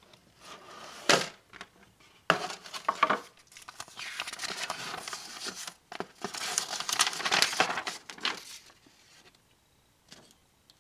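Cardboard model-kit box being opened and its paper instruction manual handled and leafed through: irregular rustling and crinkling of paper and card in bursts, with two sharper rustles in the first few seconds, dying down near the end.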